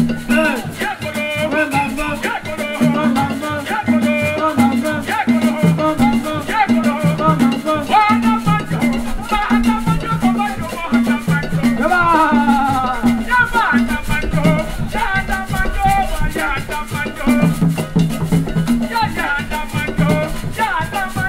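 Live Ben Skin dance music from Cameroon: tall hand drums keep a steady repeating beat under shaken rattles and voices singing a melody.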